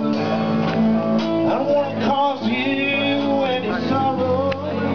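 Live band music led by guitar, with a wavering melody line bending over sustained chords.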